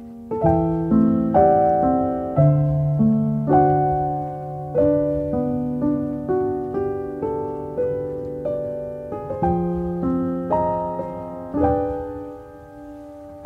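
Solo piano background music: slow, gentle notes and chords struck one after another, each ringing and fading before the next.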